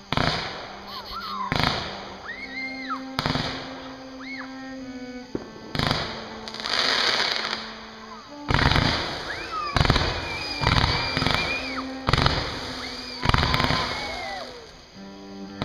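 Aerial fireworks going off in a string of sharp bangs with crackle, the bangs coming faster in the second half, and whistling shells gliding up and down in pitch. Music plays underneath.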